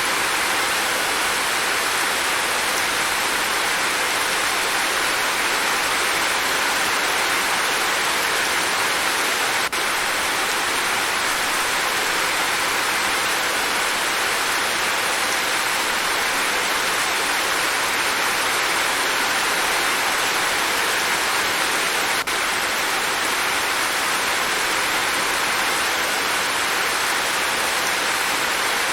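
Steady, dense rainfall: an even hiss of rain with no letup. Two faint brief clicks, about ten seconds in and about two-thirds through, barely break the rain.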